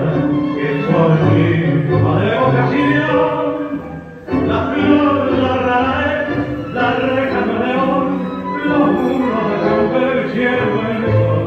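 Tango music playing for the dancers; it drops away briefly about four seconds in, then comes straight back at full level.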